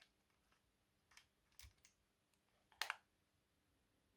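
Faint small clicks of an SD card being fitted into the Panasonic HDC-SD707 camcorder's card slot, with a louder double click about three seconds in as the card goes in.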